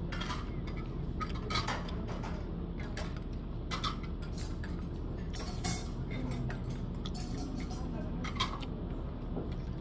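Eating utensils clinking now and then against dishes, a few separate light clicks over a steady low hum.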